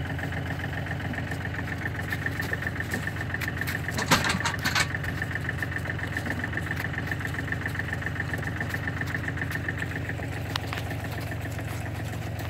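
An engine idling steadily, with a brief clatter about four seconds in.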